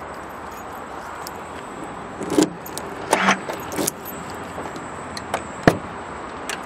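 Keys jangling in the hand in a few short rattles, then the driver's door handle of a GAZ Gazelle light truck being pulled, its latch releasing with one sharp click near the end.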